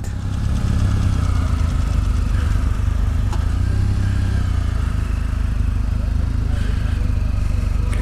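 Motorcycle engine running steadily at low speed as the bike rides off slowly.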